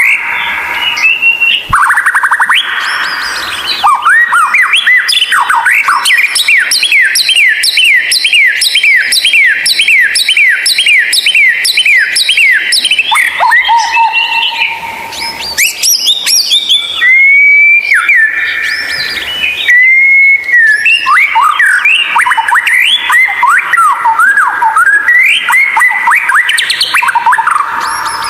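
White-rumped shama (murai batu) singing loudly. A long run of quick repeated down-slurred whistled notes, about two a second, gives way to a couple of long held whistles and then varied phrases.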